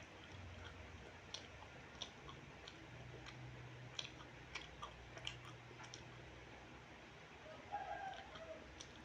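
Faint, close mouth sounds of someone chewing, with scattered small clicks and smacks. About eight seconds in, a chicken calls once, briefly, the loudest sound here.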